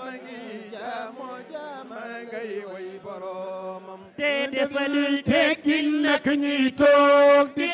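Religious devotional chanting at a Gamou, praise poetry for the Prophet. For the first four seconds it is quieter, with a held low note under a voice moving in melody. From about four seconds in it turns louder, a voice singing in short phrases with brief breaks.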